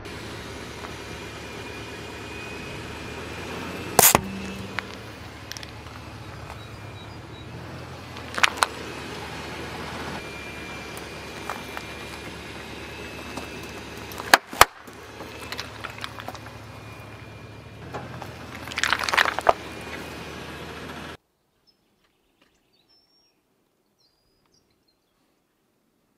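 A car tyre slowly crushing a toothpaste tube and water balloons on asphalt: sharp pops and splats about four and eight seconds in, a close double pop about halfway, and a longer crackling, spattering burst near nineteen seconds, over the car's low steady engine rumble. The sound then cuts to complete silence for the last five seconds.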